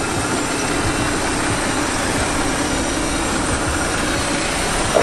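A 4x4 off-road vehicle's engine running steadily, with a steady rush of noise over it.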